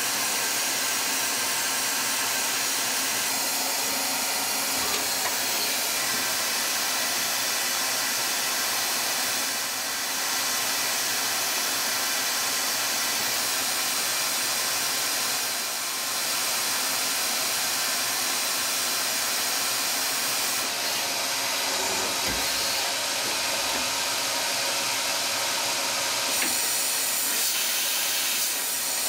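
Citizen Cincom M16-VIII Swiss-type CNC lathe running: a steady hiss with many high, steady whining tones, easing off briefly twice.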